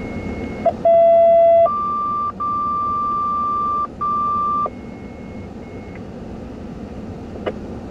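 Two-tone dispatch paging tones over a fire department radio: a steady lower tone for under a second, then a higher tone held about three seconds with two brief breaks, followed by a fainter high steady tone. This is the alert sequence that pages a crew to a call.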